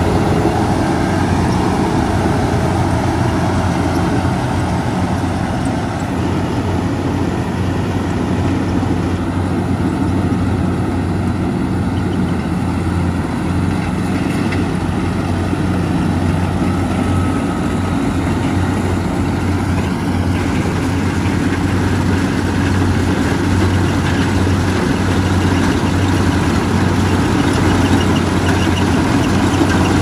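Crawler rice combine harvester running steadily as it cuts paddy: its engine and machinery make a continuous drone with a steady low hum.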